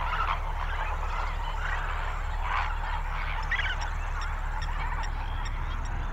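A large flock of flamingos calling in flight, with many overlapping honking calls, over a low steady rumble.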